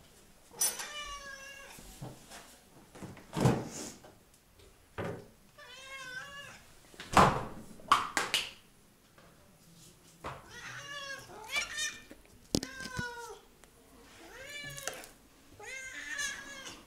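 Siamese cats meowing insistently for food, about seven long, bending meows one after another, with a few sharp knocks in between.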